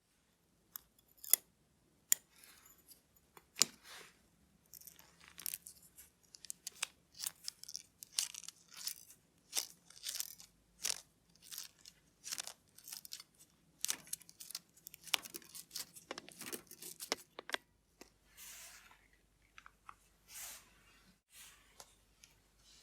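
Small watchmaker's tools working on watch parts: a long run of sharp clicks and short scraping sounds, thinning out to a few softer rustles near the end.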